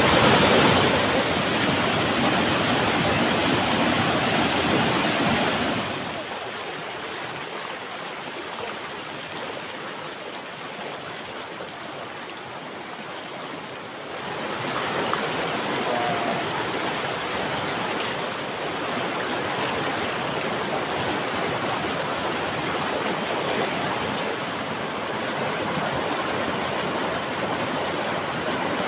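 Fast, shallow river rushing over rocks and rapids, a steady wash of water noise. It drops to a softer level about six seconds in and grows louder again around fourteen seconds.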